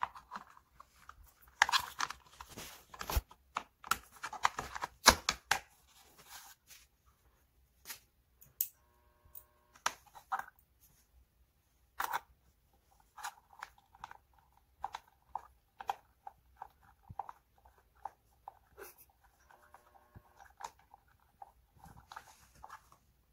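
Scattered clicks, taps and rustling as a plastic side cover is fitted by hand over a gaming chair's backrest hinge, then runs of small clicks as an Allen key turns the cover's screw.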